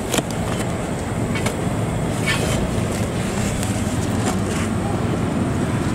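Steady rumble of street traffic, with a few light clicks as foil plates and serving utensils are handled.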